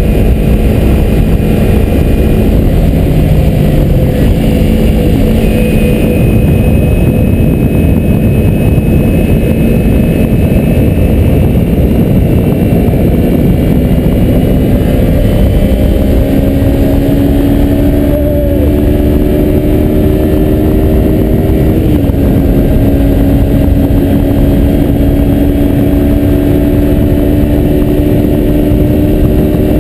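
2003 Kawasaki Ninja 250's parallel-twin engine running at road speed, its pitch climbing slowly and stepping down once late on, under a heavy, steady rush of wind noise.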